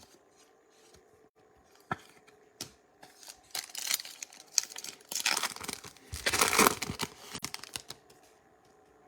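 A foil trading-card pack being crinkled and torn open: scattered crackles, then a denser crinkling that is loudest about six to seven seconds in.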